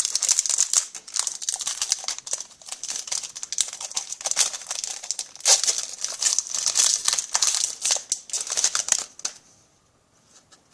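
Plastic hockey card pack wrappers crinkling and crackling as the packs are handled and torn open, stopping abruptly about nine seconds in.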